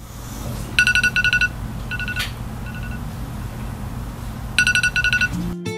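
iPhone alarm going off: short bursts of quick, high electronic beeps, a few bursts a second or two apart, over a low steady hum.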